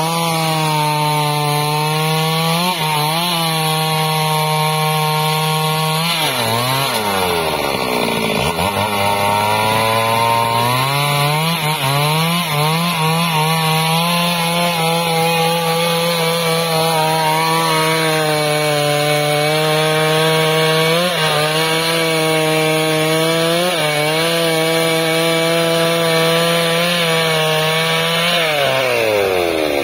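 Petrol chainsaw ripping lengthwise down a log, running hard under load with its engine pitch dipping briefly each time the bar is pushed into the cut. About six seconds in it slows deeply under the load, then picks back up to full speed, and near the end its pitch falls away.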